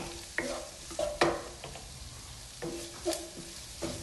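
Wooden spatula stirring and scraping around a frying pan, about six strokes with a light ring of the pan on some of them. Underneath is the steady hiss of onions, mushrooms and spices sizzling in oil.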